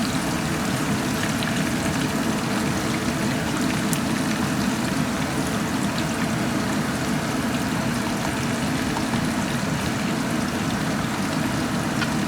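Eggplant chunks frying in a wok of plenty of very hot oil: a steady, even sizzle with faint scattered crackles.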